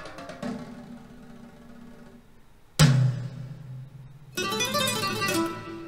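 Recorded music playing: plucked-string instrument with percussion. A single sharp, deep drum hit comes about three seconds in, then a dense run of quickly plucked strings near the end.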